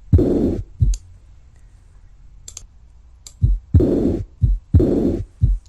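Recorded heartbeat through a stethoscope, with a loud whooshing heart murmur followed by a short thud on each beat, about one beat a second; the teaching section presents it as a diastolic murmur. The heartbeat drops out about a second in, leaving a lull with a couple of faint clicks, and comes back near the middle.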